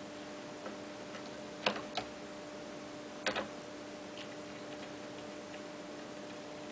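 A few sharp clicks and knocks: two about a second and a half in, a double knock near the middle, and fainter ticks, over a steady low hum.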